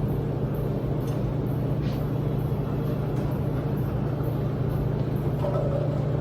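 Steady low hum of running laundromat washers and dryers, with a few faint ticks over it.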